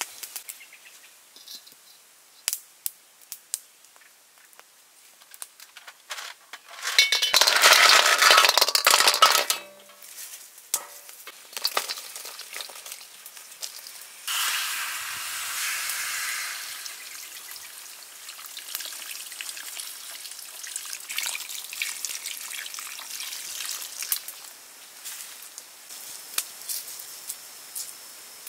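Liquid poured into a steel pot of snails, splashing loudly for about two and a half seconds a quarter of the way in. A second, softer pour comes about halfway. Snail shells clink against the metal on and off throughout.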